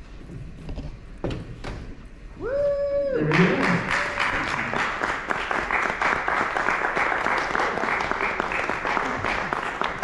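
Audience applause: a few scattered claps, then a short voice call, then general clapping breaks out about three seconds in and keeps going.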